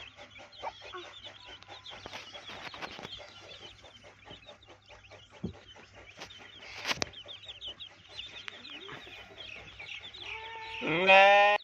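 Chickens clucking and chirping throughout, with a sharp knock about halfway through and a loud drawn-out animal call near the end.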